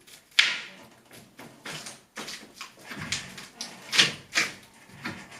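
Irregular knocks and scrapes of hand tools working against a lath-and-plaster wall, the loudest strikes about half a second in and about four seconds in.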